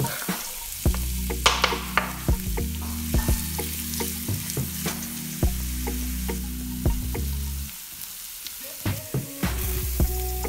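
Finely chopped onion sizzling and crackling in hot oil in a frying pan, with frequent sharp pops and a louder burst of sizzle about a second and a half in.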